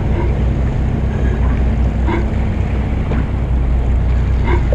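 Fishing boat's engine running with a steady low drone, with wind buffeting the microphone. A few brief, faint pitched blips come through above it.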